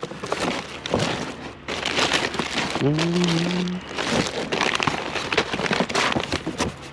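Rummaging through a curbside junk pile: crinkling plastic, rustling and small clattering knocks as items are moved and handled. About three seconds in, a short low hum-like voice sound rises briefly and holds for under a second.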